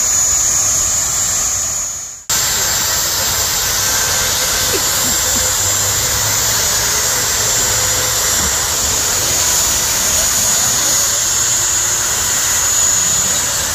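Drag-racing jet car's turbine engine running, a loud steady roar with a high whine over it. The sound fades and drops out briefly about two seconds in, then comes back at full level.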